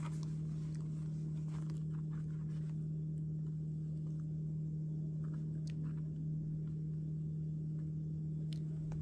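A steady low hum, with a few faint clicks and rustles from a leather sunglasses case being handled, its snap flap opened.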